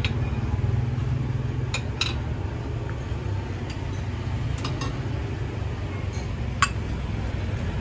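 Serving spoons and ladles clinking against glass topping bowls as dessert toppings are scooped into a cup: several sharp clinks, the sharpest near the end, over a steady low rumble.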